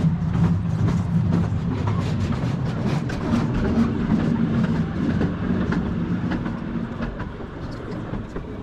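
A vehicle in motion: a steady low rumble with a droning tone, overlaid by frequent rattles and clicks, fading a little near the end.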